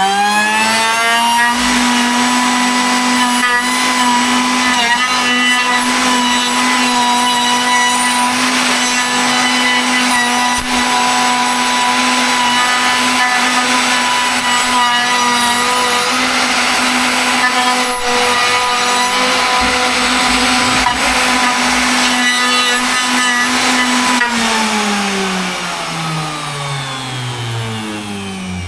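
Electric woodworking power tool spinning up, running at a steady high-pitched whine while cutting through wood for about 24 seconds, then switched off and winding down with a falling pitch near the end.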